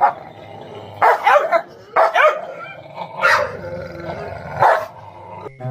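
Two dogs barking and growling at each other: about four short, sharp barks, with a low growl running between the last ones.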